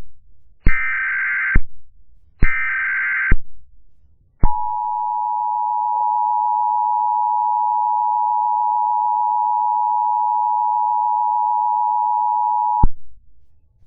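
Emergency Alert System tones: the last two of three short digital SAME header data bursts, each just under a second long. About a second later the steady two-tone EAS attention signal sounds for about eight seconds and cuts off abruptly, announcing a warning message.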